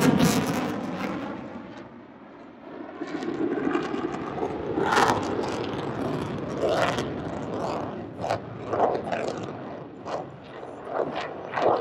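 Jet noise from an F-22 Raptor's twin afterburning turbofans during a low demonstration pass. It is loud at the start, dips about two seconds in, then rises again with uneven, rough surges.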